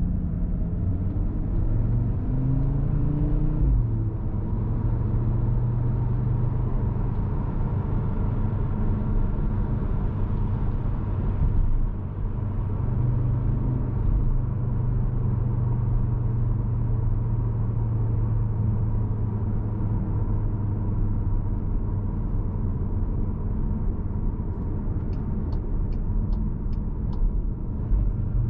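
Cupra Formentor VZ5's 2.5-litre turbocharged five-cylinder engine droning steadily under road noise while driving, heard from inside the car. The engine briefly rises in pitch a few seconds in, then holds a steady cruise. A short run of light ticks comes near the end.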